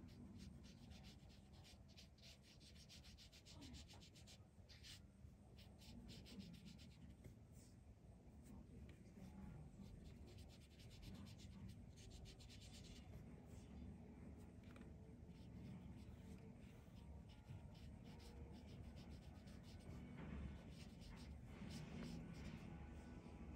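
Faint scratchy rubbing of a paintbrush laying watercolour on paper, coming in several runs of quick strokes a few seconds long.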